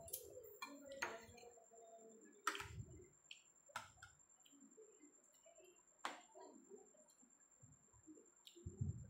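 Quiet utensil sounds of a spoon and fork clicking against a ceramic plate of rice, a handful of sharp separate clicks spaced a second or more apart. Soft chewing sounds come in between.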